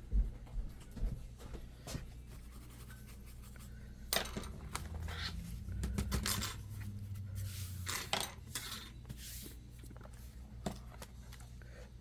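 Small clicks and scraping, rubbing sounds of hands and tools working on a laptop's internals. They come sparsely at first, then grow busier for several seconds in the middle.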